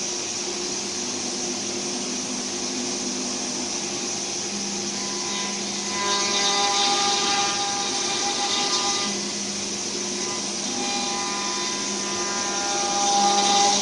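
CNC wood router running, a steady spindle whine over the hiss of a cutter working wood. It gets louder about six seconds in and again near the end.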